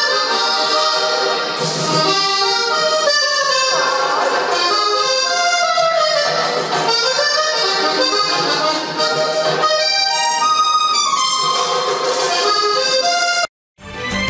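A Hohner diatonic button accordion plays a lively vallenato tune with full chords and quick melody runs. Near the end it cuts off abruptly, and the opening of a news theme jingle follows.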